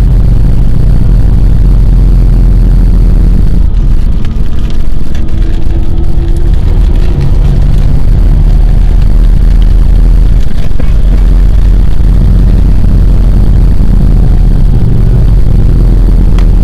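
Loud, steady low rumble of a moving vehicle heard from inside it on a highway: road and engine noise, with fainter engine tones coming and going.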